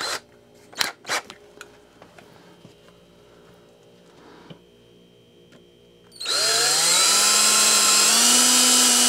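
A couple of sharp knocks from the wooden boards being handled, then, about six seconds in, a cordless drill starts up. It rises in pitch as it spins up and runs steadily, boring a 1/8 inch pilot hole through a wooden board.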